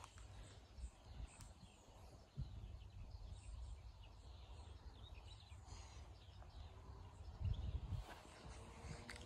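Quiet outdoor ambience: faint bird chirps over a low rumble on the microphone, which swells about seven and a half seconds in.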